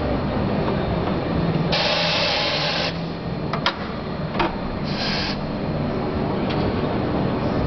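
Corghi AG50 tyre changer at work: two sharp hisses of compressed air, a long one about two seconds in and a short one about five seconds in, with a couple of clicks between them as the tool arms are set, over a steady low hum.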